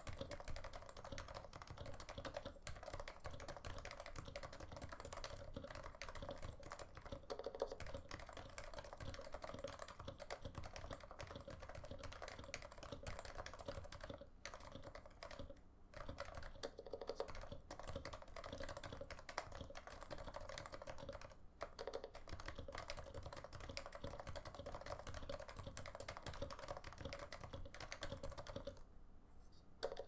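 Continuous typing on a Norbauer Norbaforce Mk. III Topre keyboard with stock 45 g Topre domes, Krytox-lubed sliders, Deskeys #3 silencing rings and a wool dampener inside. The keystrokes come in a dense, steady stream, with a brief pause near the end.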